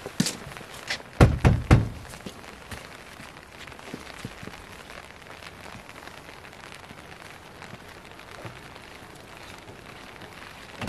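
A quick series of about four knocks on a wooden door about a second in, followed by the steady hiss of light rain.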